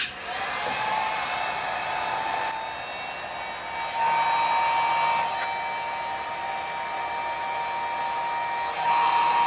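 Cheap electric heat gun running on its low setting, blowing hot air: a steady fan rush with a thin whining motor tone. It grows louder about four seconds in.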